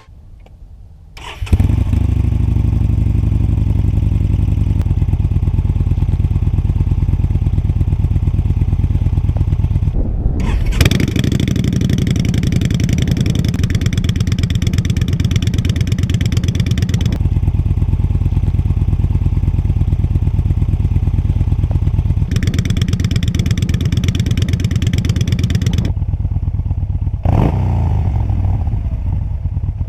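Yamaha Bolt's air-cooled V-twin motorcycle engine starting about a second and a half in, then idling through the exhaust, with a rev near the end. The sound changes abruptly several times, as between separate takes.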